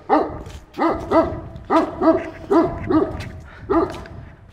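A dog barking at people arriving, about ten sharp barks, mostly in quick pairs.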